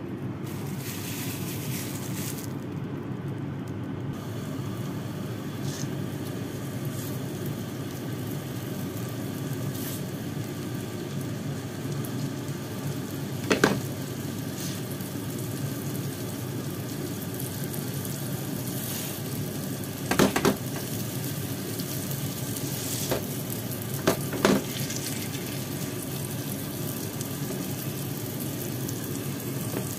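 Mashed pumpkin patties with minced prawn and pork frying in oil in a nonstick pan, a steady sizzle. A few short knocks sound over it, about halfway through and twice more a few seconds later.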